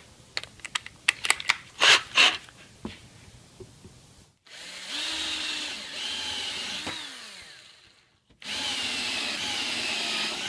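A few clicks and knocks of tools being handled, then a cordless drill driving a screw into hard maple in two runs: the first starts about four seconds in and stops near eight seconds, the second starts again right after. Its motor whine sags a little in pitch under load.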